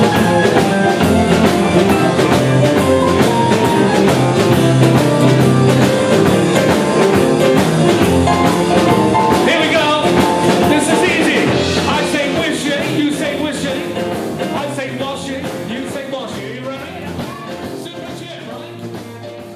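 Rock and blues band playing, with a drum kit keeping a steady beat under electric guitar and bass. It fades out gradually over the last several seconds.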